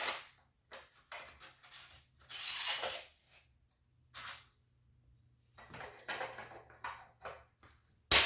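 End caps being fitted onto the ends of a Kawneer 1686 panic exit device: scattered small clicks and knocks of hardware handling, a longer scrape about two and a half seconds in, and a sharp loud snap near the end as a cap goes home.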